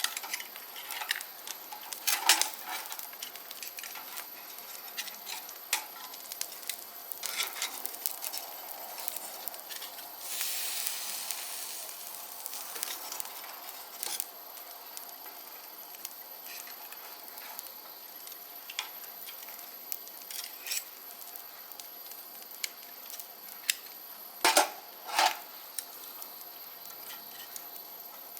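Food sizzling on a small stainless-steel barbecue grill, with scattered crackles and clicks throughout and a louder burst of hissing about ten seconds in. Near the end, two ringing metallic clinks, like utensils knocking on the grill.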